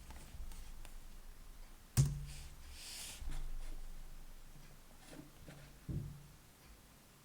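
A few computer mouse and desk clicks in a quiet small room: a sharp click about two seconds in, followed by a short hiss, and another knock near six seconds.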